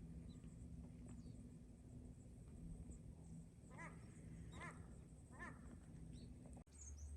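Faint outdoor quiet with three distant animal calls close together, each rising and falling in pitch.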